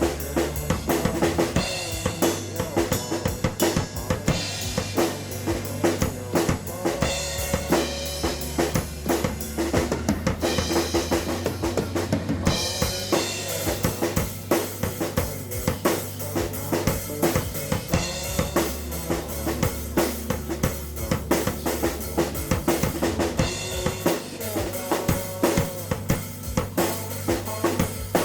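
Rock music led by a drum kit, with bass drum, snare and rimshot hits in a steady groove over bass and sustained pitched instruments, and no singing.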